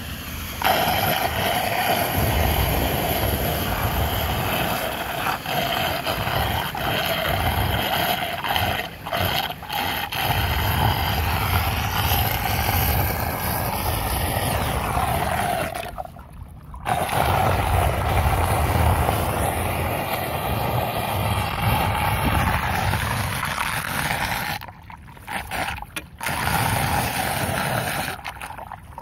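Floodwater swirling and gurgling down a just-unclogged street storm drain, a steady rush with low rumble that drops away briefly twice.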